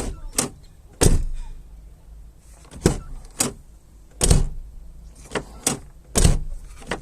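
Opel Vectra A car door being opened and shut repeatedly. It closes with three solid slams, with lighter latch clicks between them. The door is fitted with a home-made metal striker insert meant to stop the lock squeaking and rattling, and it shuts tight and dull.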